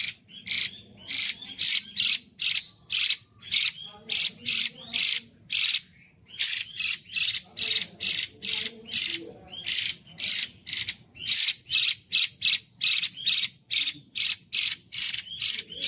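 Female Chinese hwamei (Garrulax canorus) calling loud and clear: a fast series of short, high notes repeated about two or three times a second, with one brief pause about five and a half seconds in.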